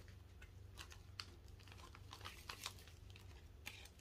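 Faint crinkling and scattered light clicks of a clear plastic packet of dried flowers being handled.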